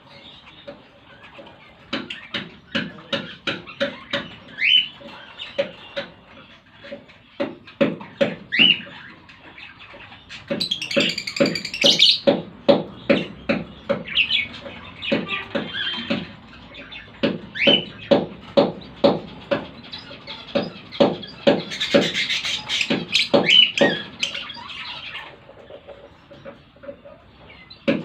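Lovebirds chirping and squawking: short rising chirps, with two louder bursts of shrill chatter, one about a third of the way in and one after two-thirds. Underneath runs a rapid, regular low pulsing, several beats a second.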